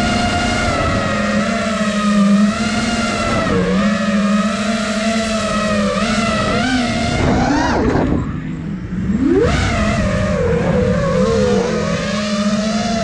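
Motors and propellers of an iFlight Nazgul Evoque F5 five-inch FPV quadcopter, heard from the camera on the drone itself: a steady whine whose pitch wavers with throttle. About eight seconds in the throttle drops and the whine falls away, then it sweeps back up about a second and a half later.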